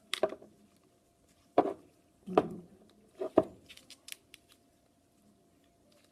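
Sharp clicks and taps of an iPhone 6 screen assembly being handled and pressed onto the phone's frame: about five separate knocks in the first three and a half seconds, then a few lighter ticks.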